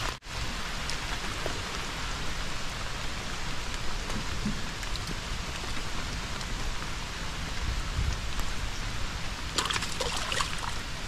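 Steady rain falling, an even hiss, with a few light clicks about ten seconds in.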